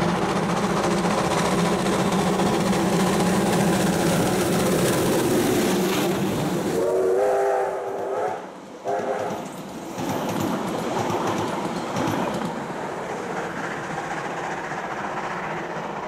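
New Zealand Railways Ab-class steam locomotive working a passenger train as it passes close by. A whistle sounds briefly about seven seconds in, then the carriages roll past with a clickety-clack of wheels on rail joints that slowly fades.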